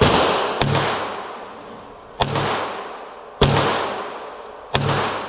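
Sig P320RX Compact 9mm pistol firing a slow string of about five single shots at uneven spacing, each crack trailing off in a long echo off the indoor range's walls. The shots are a sight-in group with the freshly adjusted red dot.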